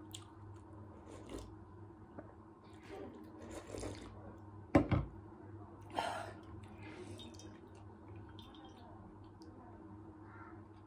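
Slurping and sipping of chicken soup from a metal bowl, with wet mouth and chewing noises. About halfway through comes a single loud knock, the loudest sound, as the brass bowl is set down on the wooden table.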